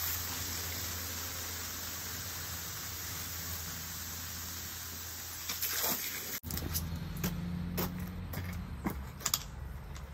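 Steady hiss of water spraying from a garden hose, which stops abruptly about six seconds in; after that, a handful of sharp clicks and knocks as the hose and its fitting are handled, over a low hum.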